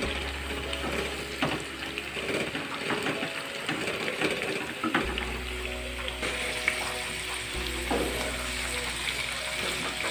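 Papaya cubes frying in hot oil in a kadhai, with a wooden spatula scraping and knocking against the pan as they are stirred. The knocks come thickest in the first half.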